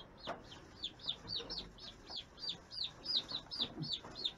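Young chickens peeping: a steady run of short, high peeps, each falling in pitch, about three or four a second.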